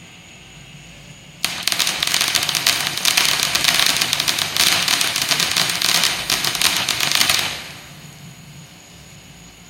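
Ground fountain firework hissing, then breaking into loud, dense, rapid crackling about a second and a half in. The crackling lasts about six seconds and then fades back to a faint hiss.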